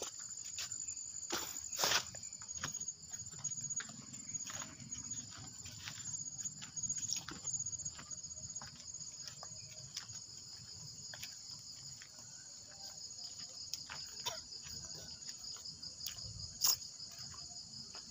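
Night insects, crickets, trilling steadily at two high pitches. Scattered sharp clicks and knocks come over them, the loudest about two seconds in and near the end.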